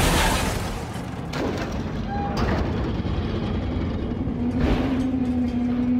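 Film sound effects of a heavy armored semi-truck crashing and its trailer flipping: a loud crash at the start, then further crunching impacts over a heavy vehicle rumble. A steady low note comes in after about four seconds.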